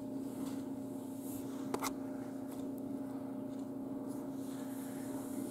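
A steady low hum with a fainter higher tone over it, with faint rustling from handling a bean-filled plush toy. There is one sharp click a little under two seconds in.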